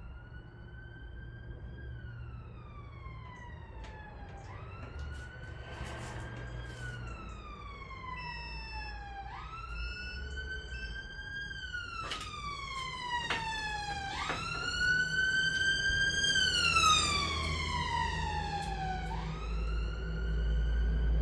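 Emergency-vehicle wail siren, each cycle a quick rise then a slow fall in pitch, repeating about every five seconds and getting louder in the later cycles. A low vehicle rumble grows beneath it near the end.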